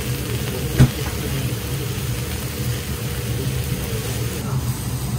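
Steady low mechanical hum from the kitchen equipment around a teppan griddle, with one sharp knock a little under a second in.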